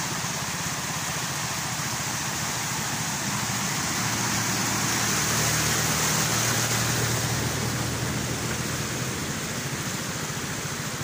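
A small box truck's engine running as it drives slowly past through floodwater, louder as it passes close about midway. Under it, a steady hiss of rain and rushing water.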